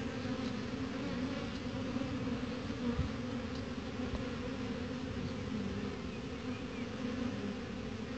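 Honeybees buzzing at a hive entrance, many flying at once during an orientation flight, giving a steady low hum.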